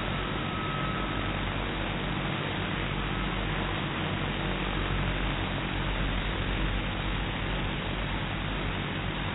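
DJI Phantom 2 quadcopter's motors and propellers running as it hovers just overhead: a steady low hum under an even hiss.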